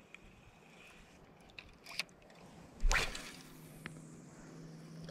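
A cast with a light spinning rod and reel: a sharp swish of the rod about three seconds in, the loudest sound, then a high hiss that falls away as line runs off the spool. A few small splashes and clicks from the water come before it.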